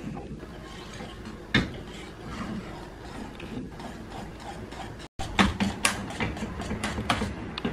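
Wire whisk scraping and clicking against a metal pot while stirring thickened chocolate pudding. The sound drops out for an instant a little past halfway, then the clicks come quicker and louder.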